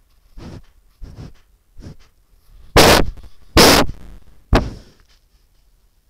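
Moose calf nosing and rubbing against a trail camera's housing: a few soft brushing sounds, then three loud scrapes against the camera a little under a second apart.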